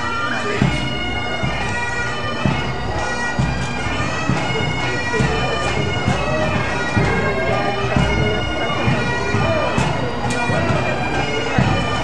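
Bagpipes playing a melody over their steady drones, with regular drum beats underneath.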